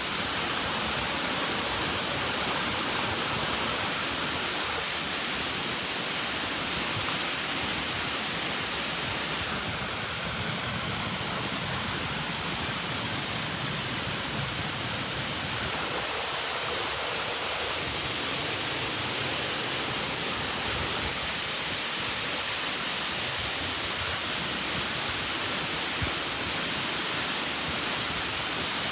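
Steady rushing roar of a large waterfall, about 20–30 m tall, with water falling onto rock into a pool below.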